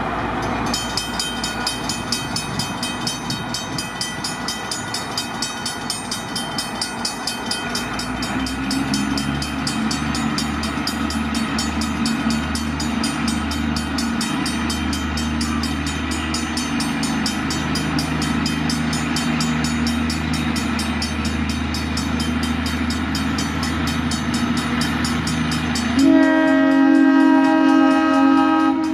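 Diesel switching locomotive running, its engine rumble rising about a third of the way through, with a steady rapid metallic ringing throughout. Near the end the horn sounds one loud chord lasting about three seconds.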